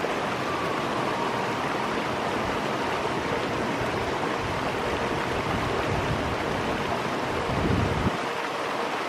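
Shallow mountain river rushing over rocks in small rapids: a steady wash of water noise. It grows briefly louder and deeper just before the end.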